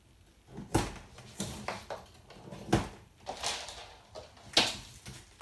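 Scissors snipping through plastic packing straps on a cardboard box, the cut straps snapping and rustling free. It comes as a series of sharp snips and snaps, the loudest about three-quarters of a second in, near three seconds and about four and a half seconds in.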